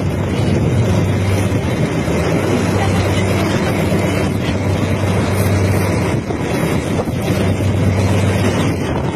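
Boat motor running with a steady low hum, under heavy wind noise on the microphone.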